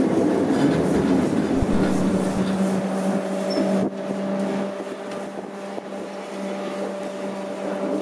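SLM-built 1910 steam rotary snowplough Xrotd 9213 running past on rails with a loud rush and rumble and a steady hum. About four seconds in the sound cuts suddenly to a quieter running train heard from on board, with steady hums.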